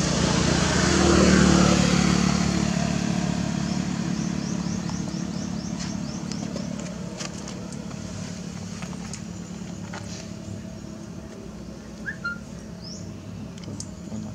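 A motor vehicle passing close by, loudest about a second and a half in, then fading slowly as it drives away.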